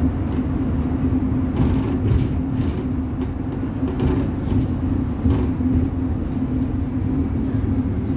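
City bus driving, heard from inside the cabin: a steady engine drone with a constant low hum over road rumble, and a few short knocks or rattles.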